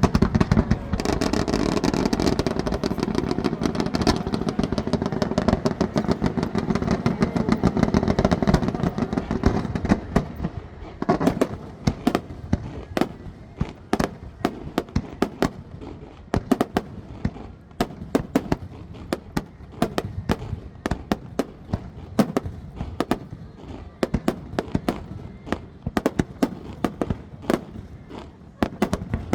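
Aerial fireworks display: a dense barrage of booms and crackling for about the first ten seconds, then a long run of sharp separate bangs, several a second.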